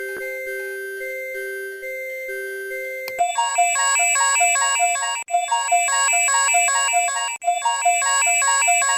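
Synthesized emergency-alert alarm tones: first a steady hi-lo alternation between two pitches, then about three seconds in a louder, brighter multi-note electronic chime phrase takes over, repeating about every two seconds with a brief break between repeats.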